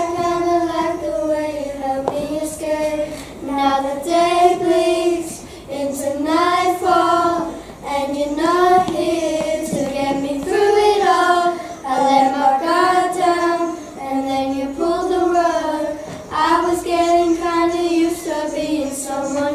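A small group of children singing a song together in unison, in phrases of long held notes that step up and down in pitch.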